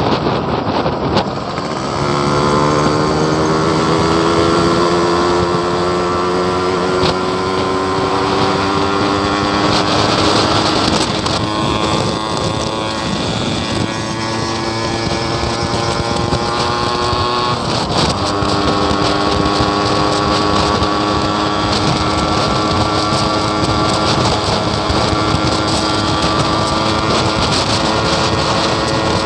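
Yamaha RX-King two-stroke single-cylinder motorcycle engine pulling under way. Its note rises slowly, breaks off about ten seconds in and again near eighteen seconds, then holds fairly steady. The owner calls the bike sluggish.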